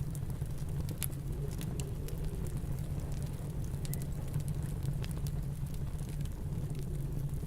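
Wood fire crackling with scattered sharp pops over a steady low rumble of snowstorm wind.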